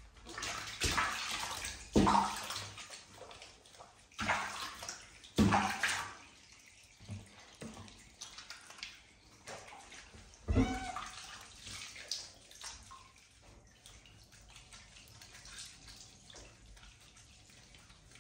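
Water splashing in a shallow bathtub as a wet cat is washed by hand, with several loud splashes in the first half and quieter running, sloshing water after that.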